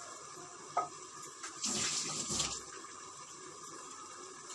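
Water running briefly for about a second, starting about a second and a half in, over a steady low hiss, with a single click just before.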